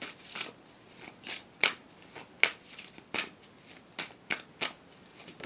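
Tarot cards being shuffled by hand: a series of short, sharp snaps and slaps of card on card at an irregular pace.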